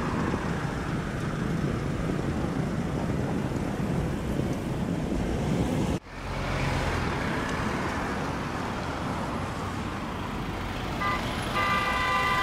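Road traffic noise from cars passing on a city street, a steady rumble that cuts out for a moment about six seconds in. Near the end a short horn toot sounds, holding one pitch.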